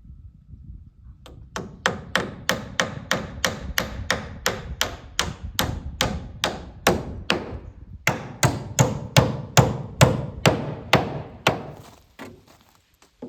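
Hammer driving nails into wooden board-and-batten barn siding: a steady run of about three sharp blows a second, with a brief break about eight seconds in, stopping near the end.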